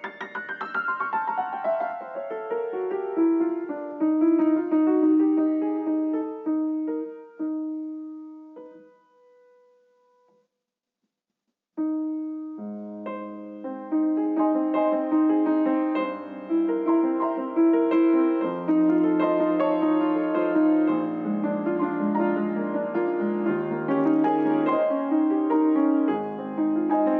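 Solo piano music: a descending run of notes that rings out and fades to silence, then after about two seconds of quiet a new piano passage starts, with repeated notes over a moving bass line.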